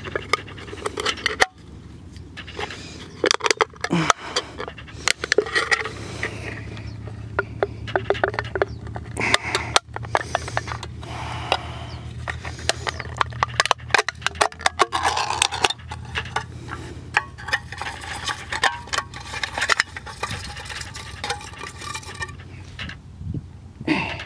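Crumpled aluminium beer can being bent and torn open by hand: a run of sharp crackles, clicks and scrapes of thin metal.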